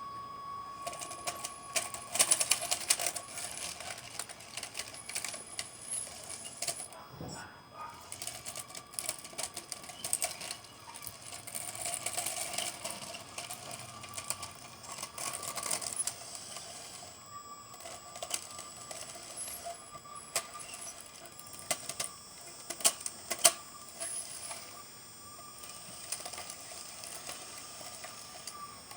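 Radio-controlled hydraulic construction model working: a small hydraulic pump whining steadily, with repeated clicks and clatter of stones and metal parts, loudest in a couple of sharp clinks about two seconds in and again near the end.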